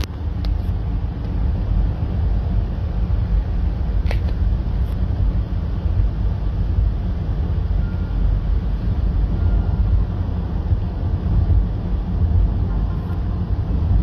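Car driving at road speed, heard from inside the cabin: a steady low rumble of tyre, road and engine noise. A brief click comes about four seconds in.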